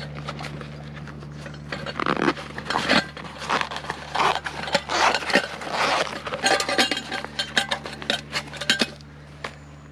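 Metal camp cookware and cutlery clinking and scraping as they are handled, in quick irregular clicks from about two seconds in until near the end.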